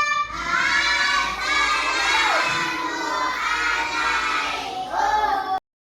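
A group of children shouting together, many voices at once, cutting off abruptly near the end.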